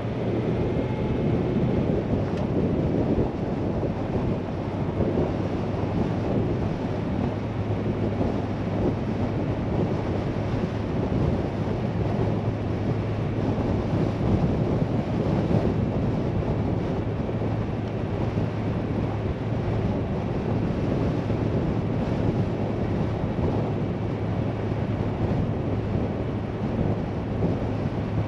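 A vehicle driving on a dirt road: a steady drone of engine and tyre noise over a constant low hum.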